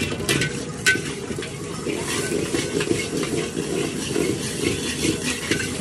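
Street-food cooking in a wok: a metal spatula clanks sharply against the pan a few times in the first second, then stirs and scrapes quickly with many small clinks.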